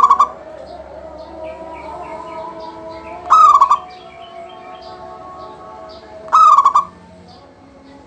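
Zebra dove (perkutut) in full song: loud rippling coos, each a sharp rising note that breaks into a quick run of short coos, repeated about every three seconds. Fainter bird chirps and notes carry on between the calls.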